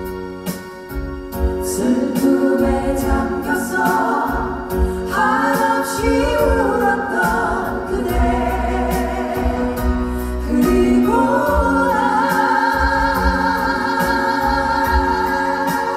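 Live music: a female vocal group singing in harmony over a band with drums and bass, several voices held together with vibrato.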